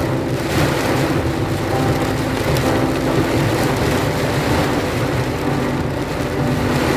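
Heavy rain of a summer storm, a dense steady rushing noise.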